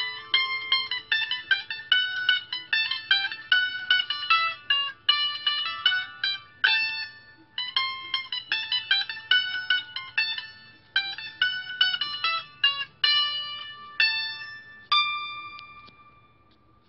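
Small round-bodied mandolin picked solo, playing a folk tune note by note in phrases. Near the end it closes on a last note that rings out and fades away.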